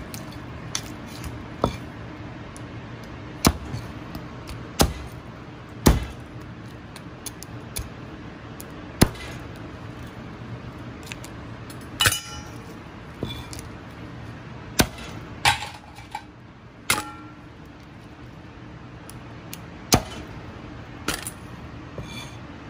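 A knife cracking a cooked crab's shell and claws on a plastic cutting board: about a dozen sharp knocks and cracks at irregular intervals, a few with a short metallic clink, over a steady low hum.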